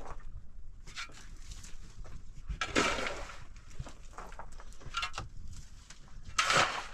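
A metal shovel scraping and scooping through dirt and broken rubble on an earthen floor, in about four strokes, the loudest about three seconds in.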